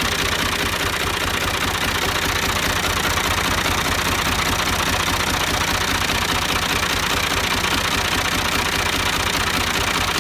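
Al-Ghazi New Holland tractor's diesel engine idling steadily.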